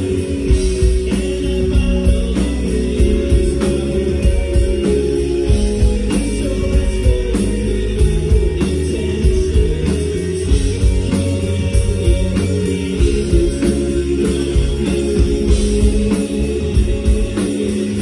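Live rock band playing a song: electric guitars, bass and a drum kit with a man singing lead vocals, the low end heavy and full.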